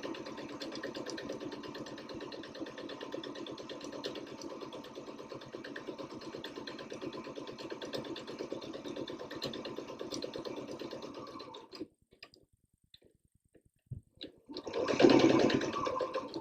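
Domestic sewing machine stitching steadily through layered fabric and batting, its needle strokes coming fast and even; it stops abruptly about twelve seconds in. A few faint clicks follow, then a short, louder burst of sound near the end.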